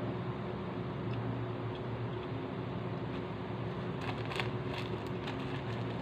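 A steady low hum runs under everything. From about four seconds in come a series of short crinkles and clicks: a plastic tissue packet being handled and opened.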